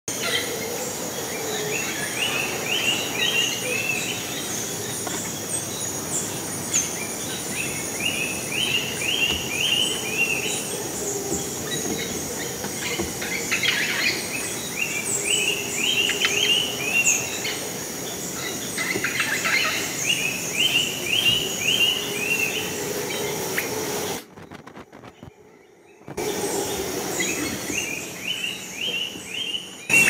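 Rainforest dawn chorus: one bird repeats a quick phrase of four or five rising chirps every few seconds, among many other bird calls, over a steady high-pitched whine. The sound drops out for about two seconds near the end.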